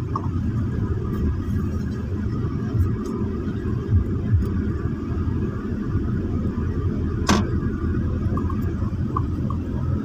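Steady low rumble of a car's engine and tyres on a concrete road, heard from inside the cabin, with a few low bumps about three to four seconds in and one sharp click near seven seconds.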